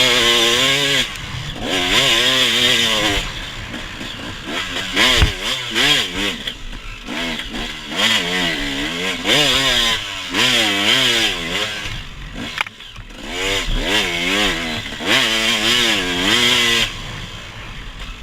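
Small off-road vehicle engine being ridden hard, its revs rising and falling quickly in repeated bursts of throttle, with lulls between them. There is a brief thump about five seconds in.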